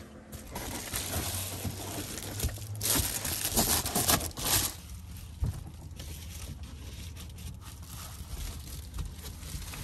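Crinkling and rustling of reflective foil-insulation window covers being handled and pressed into a van's windows, loudest in a burst of crackling between about three and five seconds in, with a steady low hum underneath.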